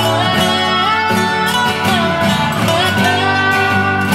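Background music led by guitar in a country style, with a melody that slides between notes over a steady beat.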